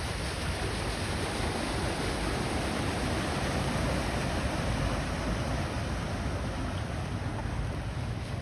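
Steady rushing of floodwater draining away through a freshly unclogged blockage, mixed with wind buffeting the microphone.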